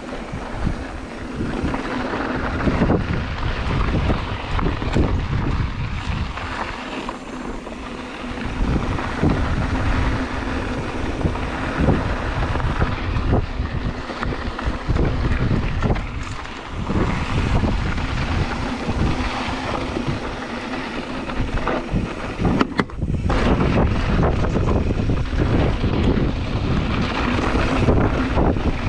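Wind buffeting an action camera's microphone during a fast mountain bike ride on dirt singletrack, over the noise of the 2016 Ibis Mojo HD3's tyres rolling on the trail and frequent knocks and rattles from the bike hitting bumps. The noise swells and eases with speed, dipping briefly about two-thirds of the way through before growing louder again.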